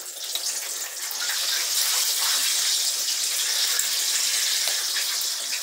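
Running water, like a tap left on: a steady rushing hiss that swells over the first second or two, then holds even.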